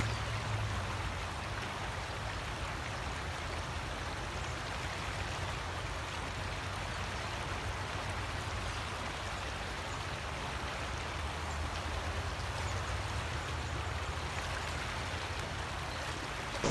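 Creek water running over shallow riffles: a steady, even rushing with a low rumble underneath.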